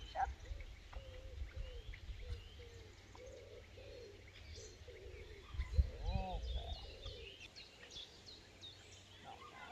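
Wild birds chirping and singing, many short calls and trills overlapping throughout, over a low outdoor rumble that swells about six seconds in.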